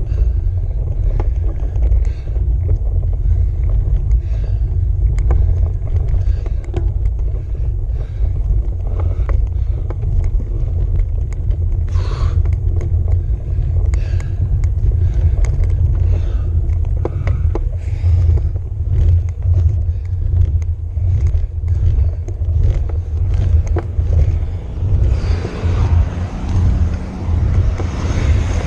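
Steady low rumble of a road bike climbing, picked up through a handlebar-mounted camera, with scattered clicks and rattles. About three seconds before the end a car approaches and its noise swells over the rumble.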